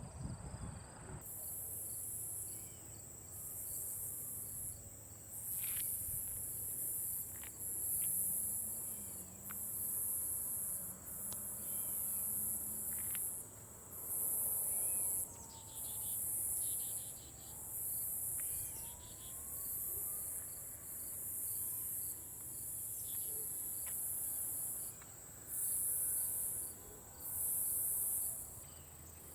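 Insects calling at dusk. A steady high-pitched trill runs underneath a louder, very high buzzing song that comes in about a second in and sounds in bursts of about a second, repeating roughly every second and a half.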